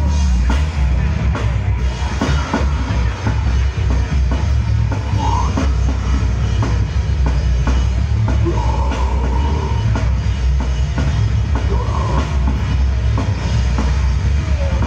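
Heavy metal band playing live through a stage PA: electric guitar and fast, dense drumming, loud, with a booming low end.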